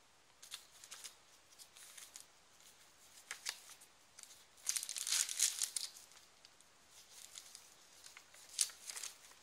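Paper rustling and crinkling as the pages, tags and envelopes of a handmade paper journal are handled, with a louder flurry of rustling about five seconds in and a short sharp rustle near the end.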